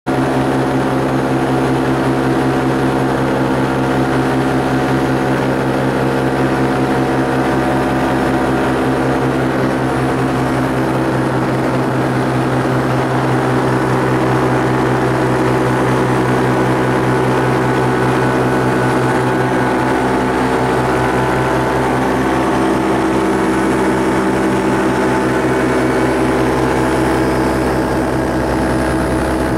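Steady drone of a small propeller aircraft engine running at constant speed, heard from aboard the flying aircraft.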